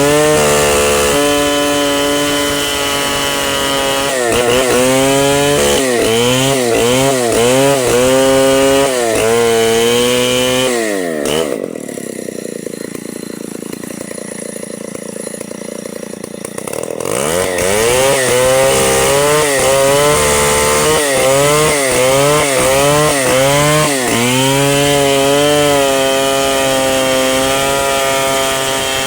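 Chainsaw cutting mahogany, its engine pitch dipping again and again under load and recovering as the wood resists. For several seconds in the middle it goes quieter and duller before picking up again.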